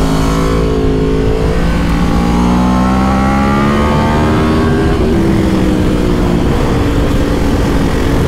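Yamaha R1 inline-four engine accelerating under the rider, its pitch climbing for a few seconds and then dropping at an upshift about five seconds in, with wind rushing past.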